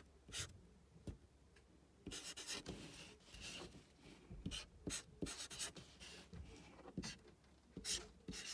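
Coloured paper strips scraping and rubbing on a desktop as they are slid into place. Short, irregular scratchy strokes, several a second, start about two seconds in.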